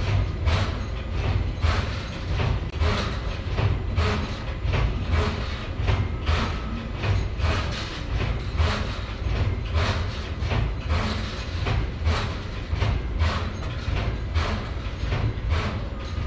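Background music with a steady, driving beat, about two beats a second over a low rumble.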